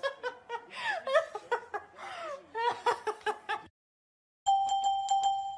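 A woman laughing in high-pitched bursts for the first few seconds. It breaks off at a short silent cut, followed near the end by a steady chiming tone with a quick ticking beat of clicks, the start of glockenspiel-like music.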